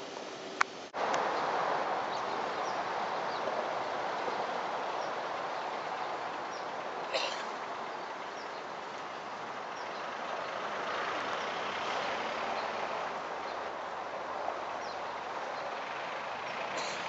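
Steady outdoor noise with scattered faint short high chirps, after a sharp click about half a second in where the recording cuts.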